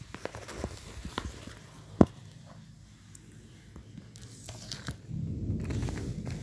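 Handling noise from a phone being moved: scattered clicks and knocks, with one sharp knock about two seconds in, then a low rubbing rumble from about five seconds in.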